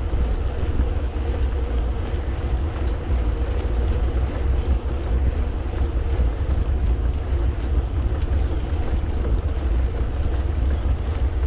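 Steady low rumble of a mountain bike riding along a paved path: tyres rolling on asphalt, with wind on the microphone.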